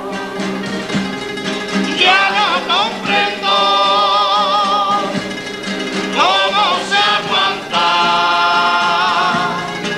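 Male comparsa chorus singing in harmony, holding long wavering notes in two phrases over a steady lower accompaniment.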